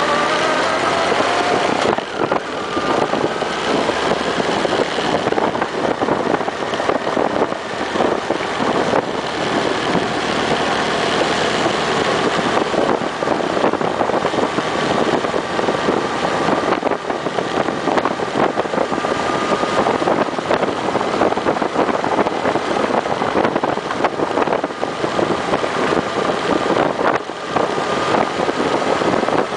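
Honda CB1300's inline-four engine running at a steady road pace under a dense rush of wind over the bike-mounted microphone.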